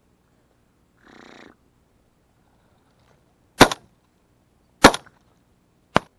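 Three shotgun shots about a second and a quarter apart, the first about three and a half seconds in. A short, faint noise comes about a second in.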